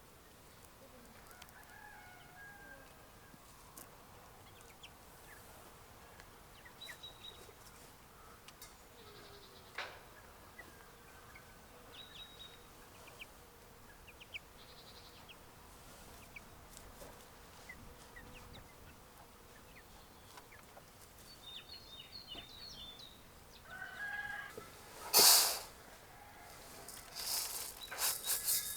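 Farmyard animals: faint scattered chirps and clucks, then louder calls from goats or chickens in the last few seconds, with one brief loud noisy burst among them.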